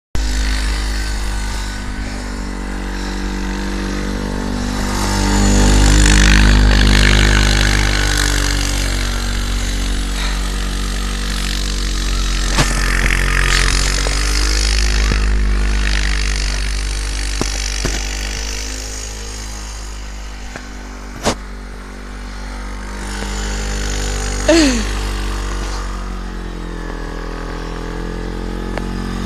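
An engine running steadily, its sound swelling and easing. There is one sharp click about two-thirds of the way through and a short falling squeak a few seconds later.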